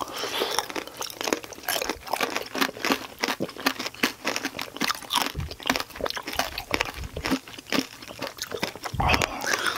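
Close-miked crunching and chewing of tanghulu: the hard, glassy sugar shell on mandarin orange segments cracking between the teeth in many sharp crunches in quick succession, with wet chewing of the juicy fruit. Two soft low thumps come about halfway through and near the end.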